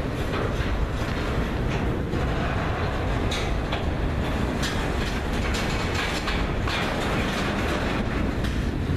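Freight train's open-top freight cars rolling past: a steady rumble of steel wheels on rail, with sharper clacks now and then as the wheels cross rail joints.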